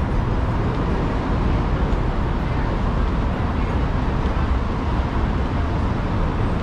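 Steady traffic noise from the motor-vehicle lanes of a bridge, a dense rumble heaviest in the low end, with no breaks or distinct events.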